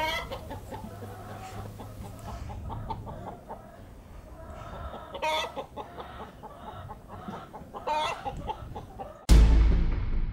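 A flock of domestic hens clucking, with sharper calls now and then, over a low steady hum. Near the end, a sudden loud hit cuts in and trails away, louder than the hens.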